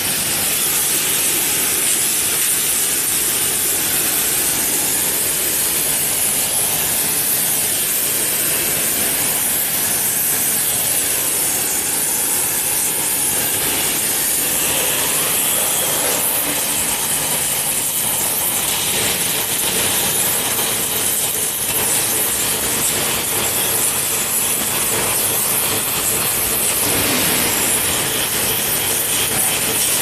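Gas welding torch flame hissing steadily while copper return bends are joined onto a dehumidifier condenser coil.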